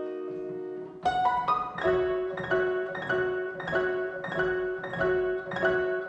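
1808 Broadwood fortepiano playing a waltz. A held chord dies away, then a short rising run of notes about a second in leads into an even accompaniment of repeated struck chords, roughly one every two-thirds of a second.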